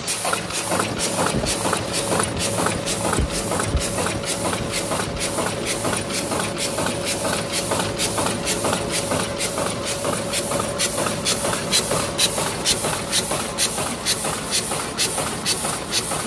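Ruida RD-12/22-100A high-speed paper cup machine running in production, its open cam drive clacking in an even rhythm of about two and a half strokes a second, one stroke per cup at about 130–150 cups a minute. Under the clacking is a steady hum and hiss.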